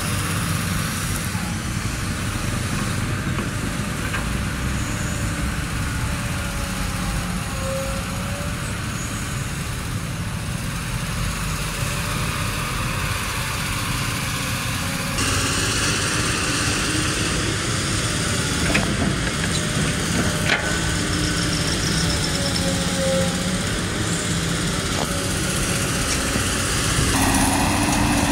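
Diesel engines of a PC200 excavator and Mitsubishi Colt Diesel dump trucks running steadily. The sound changes abruptly about halfway through and again near the end.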